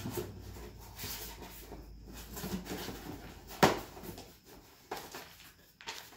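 Cardboard packaging and paperwork being rummaged through by gloved hands: irregular rustling and scraping, with one sharp knock a little past halfway.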